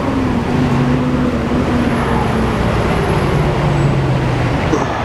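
A motor vehicle's engine running close by, heard over steady road traffic noise, its pitch shifting a little as it goes.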